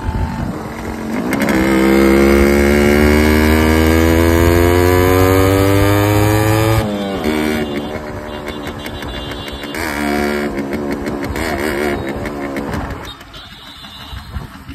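Yamaha RX100's two-stroke single-cylinder engine accelerating through a silencer newly fitted with a mesh baffle (jaali), which has taken most of the loudness out of its exhaust note. The revs climb steadily for about five seconds and then fall off abruptly. They rise again about ten seconds in and ease off near the end.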